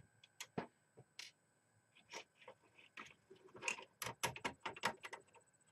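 Faint, scattered clicks and taps of hard parts being handled as a CPU cooler's fan assembly is worked loose and slid up off the heatsink. A few single clicks come first, then a quicker run of clicks in the second half.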